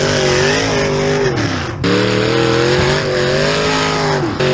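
Demolition derby car's engine revving hard, heard from inside the cockpit. The revs drop sharply about one and a half seconds in and again near the end, each time climbing straight back up as the driver works the shifter.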